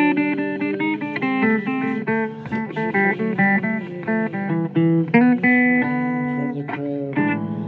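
Blues guitar music: a quick run of plucked notes and chords.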